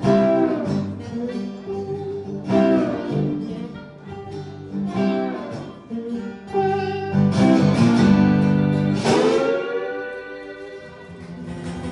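Acoustic blues played live: harmonica with bent, gliding notes over strummed and picked acoustic guitars, one of them a tenor guitar. The playing eases off near the end as the song winds down.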